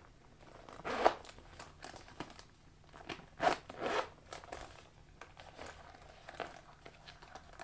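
Metal zipper of a Coach quilted nappa leather heart bag being pulled open in a few separate, uneven strokes, the loudest about a second in and around three and a half to four seconds in, with light rustling of the leather between them. The zipper does not run smoothly on this first opening.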